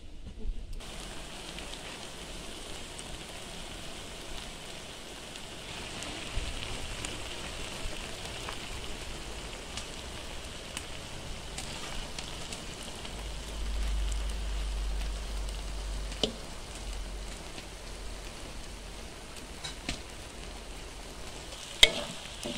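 Plov rice boiling hard in a kazan over a wood fire: a steady sizzling hiss as the water cooks off into the rice, with scattered crackles. A low rumble for a few seconds in the middle and a sharp click near the end.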